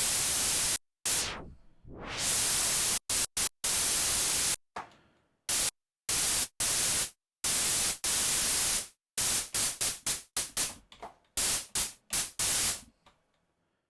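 White noise from a Sylenth1 software synthesizer, brightened with EQ and run through a filter, played as a string of bursts. Some are long and cut off sharply; others fade as the filter closes and the high end drops away. A quick run of short stabs comes near the end.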